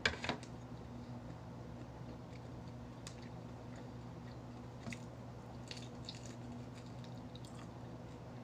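A person eating, chewing and biting, with one sharp crack just at the start and a few faint clicks of chewing afterwards.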